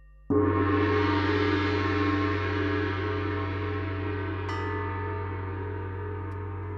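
Large bronze gong struck once with a felt-headed mallet, then ringing with a dense, shimmering mass of overtones that fades slowly. About four and a half seconds in, a second, lighter metallic stroke adds higher ringing tones over the decay.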